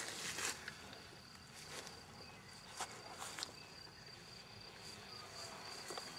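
Insects chirring with one steady high-pitched tone in a grassy field, with a few faint clicks near the start and around three seconds in.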